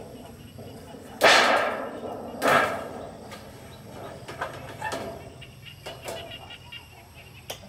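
Corrugated iron roofing sheet laid onto a roof frame, clattering loudly twice with a short metallic ringing, then a few lighter knocks as it is shifted into place. Faint bird chirps in the background.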